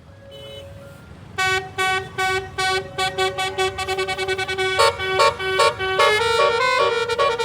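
Tourist bus's Basuri telolet musical air horn. It plays a run of short toots on one note, starting about a second and a half in and coming faster and faster, then breaks into a quick multi-note tune about five seconds in.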